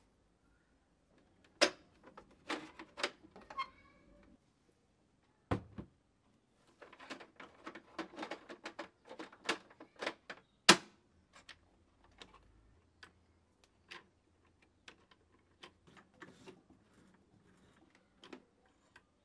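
Irregular clicks and knocks of hands handling a Singer sewing machine while setting it up for threading. A quick run of clicks builds up in the middle, with the loudest knock a little past halfway, then only sparse light ticks.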